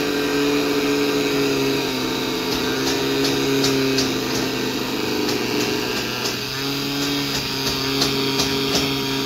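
Corded angle grinder running steadily while pressed against a plywood formwork panel: a constant motor hum with scattered short scraping ticks.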